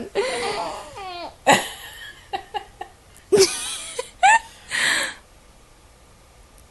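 A 16-week-old baby vocalising: a string of short squeals and breathy, growling grunts, some sliding up and down in pitch, that stop about five seconds in.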